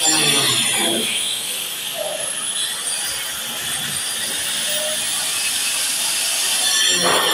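Handheld electric grinder cutting into a concrete wall, a steady gritty hiss with a thin high motor whine.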